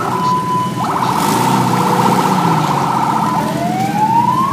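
A vehicle's electronic siren cycling through its tones: a rising whoop into a steady tone, then a fast warble for about two and a half seconds, then a slower rising whoop near the end.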